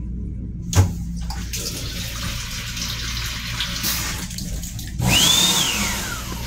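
A push-button click, then the M7 restroom's push-button faucet running into the sink for about three seconds. About five seconds in comes a louder hiss with a whistle that rises and then falls.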